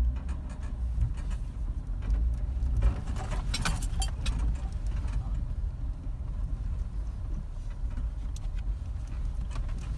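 Jeep driving over a rocky dirt trail, heard from inside the cabin: a steady low engine and road rumble with scattered clicks and rattles, a cluster of them about three to four seconds in.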